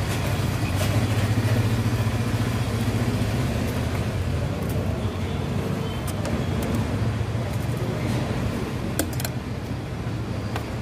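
A motor vehicle engine running steadily close by, a low even hum over street noise, with a few sharp clicks about nine seconds in.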